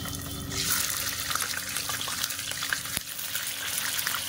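Raw chicken pieces sizzling in hot oil in a non-stick kadai as more pieces go in, a steady hiss with many small crackles. The sizzle gets louder about half a second in.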